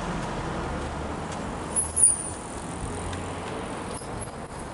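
Steady street traffic noise. A short, sharp, high-pitched squeak comes about two seconds in.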